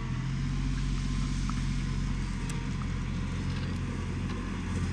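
Tractor engine running steadily at constant speed, a low even hum with no change in pitch.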